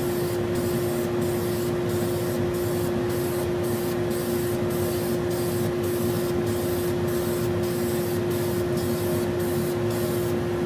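Wood lathe running with a large maple bowl turning on it: a steady hum over an even, loud hiss, with a faint pulse in the hiss about twice a second.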